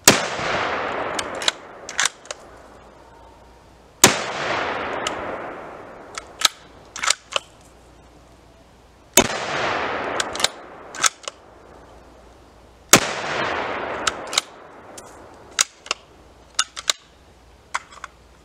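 A Stevens 334 bolt-action rifle in .308 Winchester fires four shots about four seconds apart, each a sharp report with a long echoing tail. After each shot come a few short clicks and clacks as the bolt is worked to eject the case and chamber the next round.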